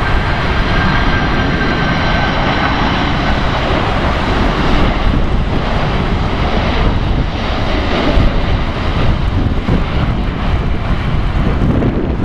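Four General Electric CF6-80C2 turbofans of a Boeing 747-400 at approach power, passing low overhead: a loud, steady jet roar with deep rumble. A high fan whine sounds in the first few seconds and fades as the aircraft goes by.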